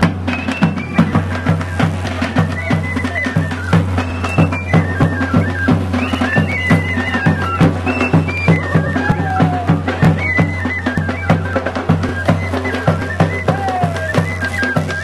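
Traditional music: a handheld drum beaten in a steady beat of about three to four strokes a second, over a steady low drone and a high wavering melody.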